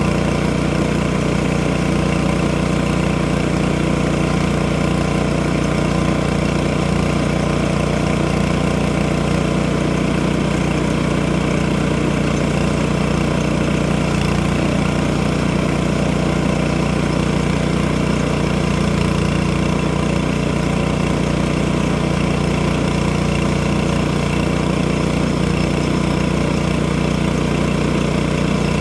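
Engine running steadily at a constant speed, with no change in pitch or load.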